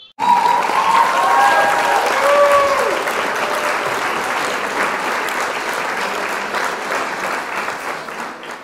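Applause from many participants on a video call, their clapping mixed through the call audio. It starts abruptly and slowly fades toward the end, with a few voices calling out over it in the first three seconds.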